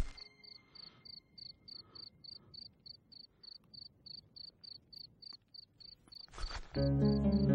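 A cricket chirping steadily in short, high, evenly spaced chirps, about three or four a second. Near the end a sudden hit brings in loud background music over it.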